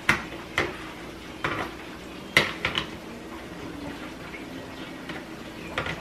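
Kitchen knife slicing through a lemon and knocking on the plate beneath it: about six sharp taps, unevenly spaced, with a pause of a few seconds before the last one.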